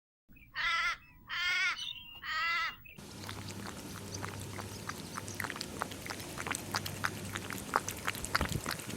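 A bird calling three times, each call about half a second long. From about three seconds in, a steady noisy background with many small scattered clicks.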